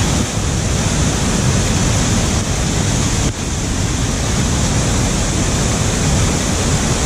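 Whirinaki Falls, a river waterfall, pouring into white water below: a loud, steady rush of water.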